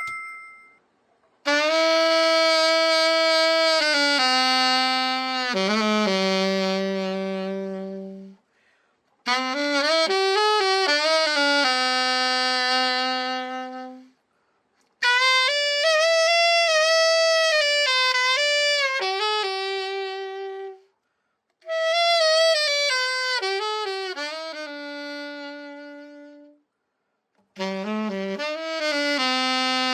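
Selmer Supreme alto saxophone played solo in five slow phrases of long held notes, separated by short pauses: a play test after a complete overhaul.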